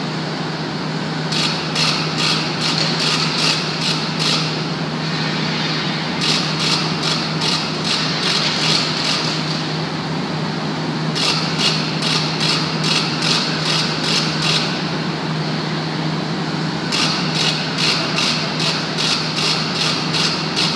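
Steady low machinery hum in a hot-dip galvanizing shop. Four spells of rapid, high-pitched rhythmic rattling, about three ticks a second, come over it, each lasting about three seconds with short pauses between.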